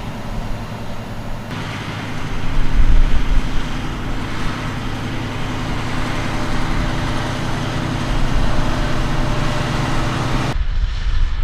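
Fendt 936 Vario tractor engine running steadily under load while pulling a Samson slurry tanker. A low rumble swells about two seconds in, and the sound changes abruptly about a second and a half in and again near the end.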